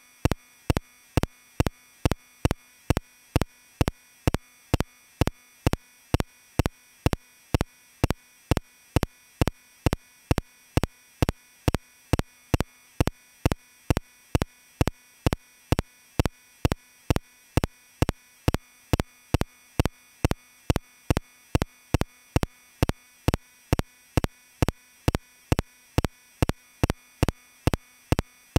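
A steady train of short, sharp electronic pulses, evenly spaced at about two and a half a second, over a faint steady background hum.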